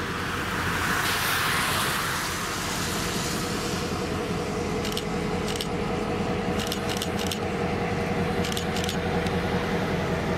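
Diesel locomotive running slowly past, a steady engine hum, with a few short metallic jingles about halfway through.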